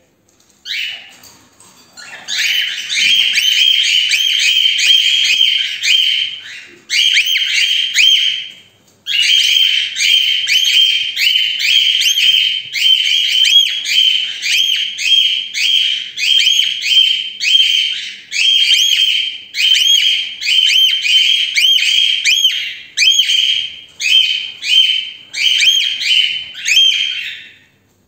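Cockatiels screaming loud, shrill contact calls over and over, the calls of a mated pair separated from each other. The calls start about two seconds in and come in rapid runs with only short breaks, turning into separate calls near the end.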